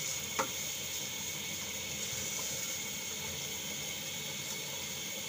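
Steady hiss of the masala heating in the pot on the gas stove, with a single light tap about half a second in.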